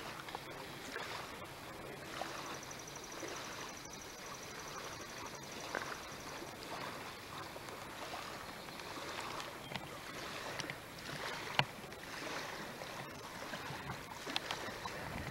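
Faint, steady outdoor background noise with a few soft clicks, and a thin high whine for a few seconds near the start.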